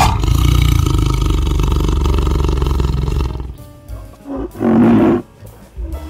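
A tiger cub growling loudly for about three seconds, over background music; after that it is quieter, with a shorter call about five seconds in.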